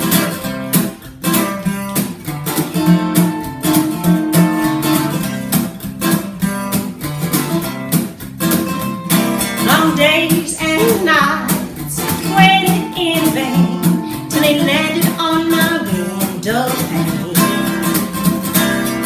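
Steel-string acoustic guitar strummed in a swing rhythm, chords ringing between the strokes. About halfway through, a woman's singing voice comes in over the guitar.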